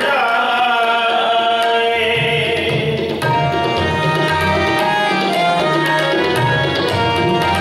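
Sikh kirtan: harmoniums playing sustained chords with a man singing, and tabla drumming. The tabla's deep bass strokes come in about two seconds in.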